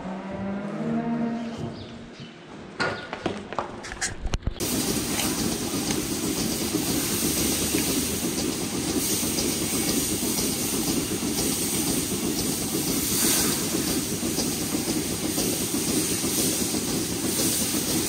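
A calf gives a low moo in the first two seconds, followed by a few knocks. Then, about four and a half seconds in, a steady hiss of a water hose starts, spraying down a milking parlour platform, and it runs on without a break.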